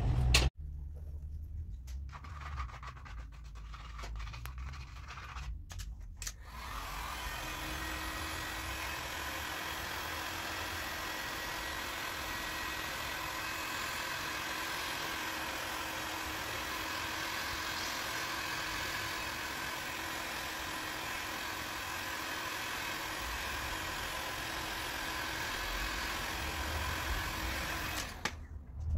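Electric heat gun running steadily: an even blowing hiss from its fan with a faint steady hum. It starts about six seconds in and switches off shortly before the end.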